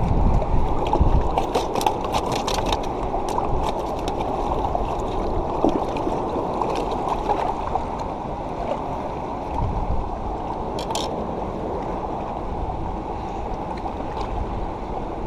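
Steady rush of moving water. A quick run of light clicks comes about one to three seconds in, and a short cluster of clicks near eleven seconds.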